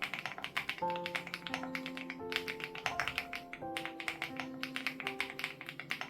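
Fast, continuous typing on a Crush80 Reboot mechanical keyboard with HMX Hyacinth linear switches: a dense, uneven patter of keystroke clacks. Soft background music with slow, sustained notes plays underneath.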